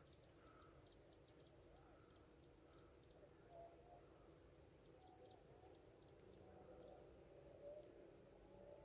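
Faint, steady, high-pitched chirring of crickets.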